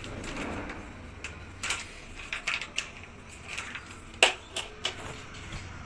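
Milk bottle and jug being handled over a plastic mixing bowl: scattered light clicks and taps, with one sharp knock about four seconds in.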